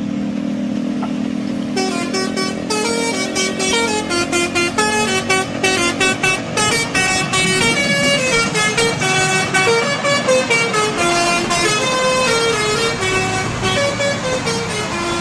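Bus 'telolet' musical air horn playing a fast melody of short stepped notes, starting about two seconds in. A lower steady tone is held under the first few seconds and fades out.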